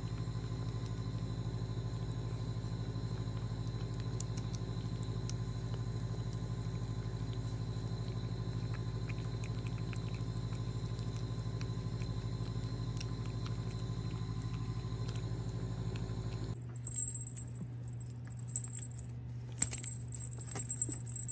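A steady low hum with faint scattered clicks from cats eating wet food out of a bowl. The hum stops suddenly near the end, leaving a high thin whine and a few sharp clicks.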